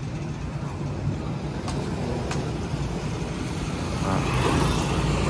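Street traffic noise with a steady low hum, growing louder from about four seconds in as a motor scooter passes close by.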